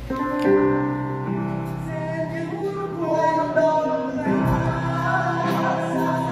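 A hymn begins: held instrumental chords that change every second or two, with singing.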